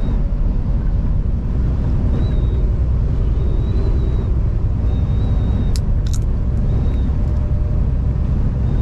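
Semi-truck cab on the road with a steady low rumble, while gusting wind whistles on a thin high note that comes and goes several times. A couple of sharp clicks sound about six seconds in.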